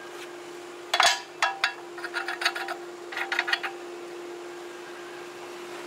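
A steady hum with a run of sharp clicks and knocks over it: a loud knock about a second in, then quicker clusters of clicks, some with a short ring, until about two-thirds of the way through.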